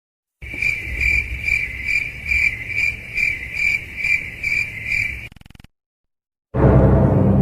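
Cricket chirping sound effect, the meme cue for awkward silence: about two even chirps a second for some five seconds. After a short silence, a loud, ominous music sting begins near the end.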